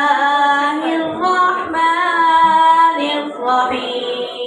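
A boy's high voice reciting the Quran in the drawn-out, melodic tajweed style, holding long notes that waver and step in pitch, with a short breath about three seconds in.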